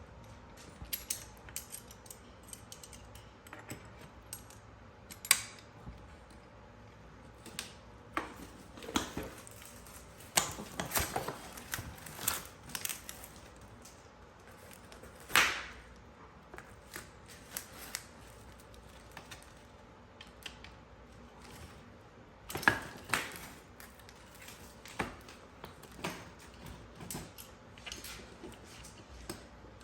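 Irregular clicks, clinks and knocks of small metal parts and hand tools being handled on a workbench, with a few sharper knocks among them.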